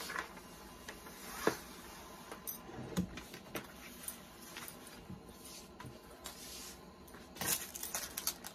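Rustling of butcher paper and sublimation transfer paper being handled and peeled from a freshly pressed coaster, with scattered light taps and clicks. The clicks come thickest about seven and a half seconds in.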